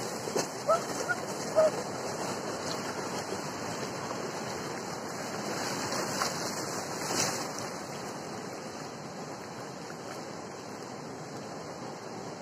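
Ocean surf washing in and breaking on a beach, a steady rushing of water. A few short high-pitched cries stand out in the first two seconds.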